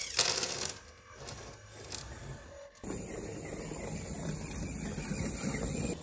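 Tiny electric motor and gears of a 1/64-scale RC dump truck whirring, with rapid clicking in the first second or so. From about three seconds in, the motor gives a steady whir.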